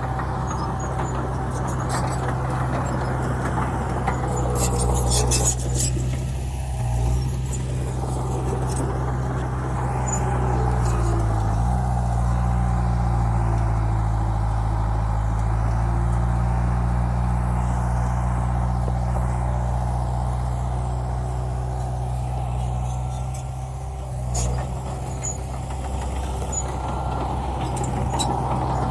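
Dump truck's diesel engine running steadily, its pitch shifting briefly about twelve seconds in. Short high-pitched hisses come about five seconds in and again near the end.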